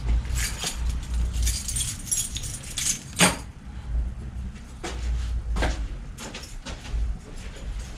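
A bicycle being handled and shifted about in a workshop: metallic rattling and clatter over the first few seconds, then several separate sharp knocks.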